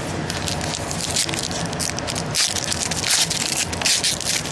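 Plastic foil wrapper of a trading-card pack crinkling and tearing as it is opened: a dense crackle of sharp rustles that comes in louder spells.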